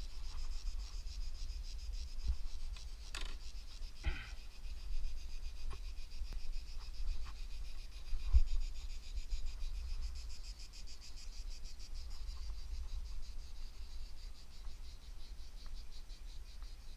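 Cicadas buzzing in a steady, rapidly pulsing high drone over a low steady rumble, with a couple of sharp clicks a few seconds in.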